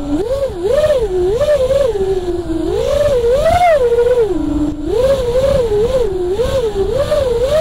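Emax Hawk 5 FPV quadcopter's brushless motors and propellers whining as heard from its on-board camera, the pitch rising and falling about once a second as the throttle is worked through turns, over a low rushing noise.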